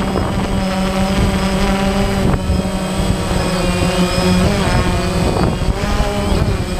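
A multirotor camera drone's electric motors and propellers buzzing close to the onboard microphone. The whine's pitch shifts up and down several times as the motors speed up and slow down while the drone manoeuvres.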